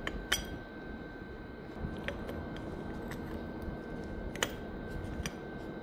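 A few sharp clicks and taps of parts being handled as throttle cables are fitted at the motorcycle's right-hand handlebar controls, over a steady background hum with a thin high tone.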